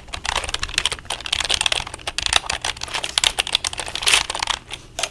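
Computer keyboard typed on quickly, a dense run of key clicks with a short pause near the end.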